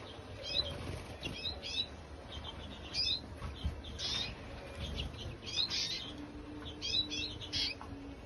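Caged birds in an aviary bird room chirping: short, sharp calls that come in quick clusters every second or so.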